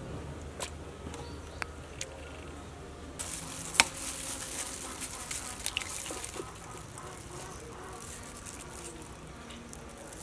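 A hen's egg is rapped sharply on the rim of a ceramic bowl about four seconds in, then the shell is pulled apart with small clicks and taps as the egg drops into the bowl. A steady high hiss runs behind it, and a low hum and a few clicks come before.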